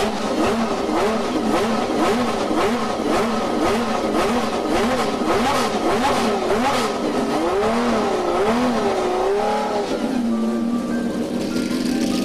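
Matra MS650's three-litre V12 racing engine being blipped in quick, even revs, one to two a second, then a few slower, wider revs before settling to a steady idle near the end.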